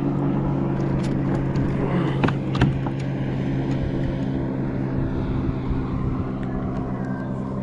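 A boat's engine running nearby with a steady, unchanging hum, with a couple of light knocks a little over two seconds in.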